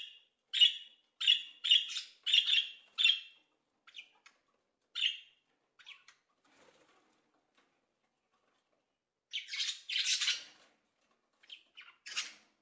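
Rosy-faced lovebirds calling: a quick run of short, high-pitched calls, then scattered single calls, with a longer burst of chatter about ten seconds in and a few more calls near the end.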